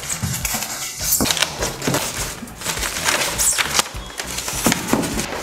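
Packing material being handled while a computer monitor is unboxed: polystyrene foam inserts, plastic wrap and card being lifted and pulled apart, crackling and rustling in irregular bursts.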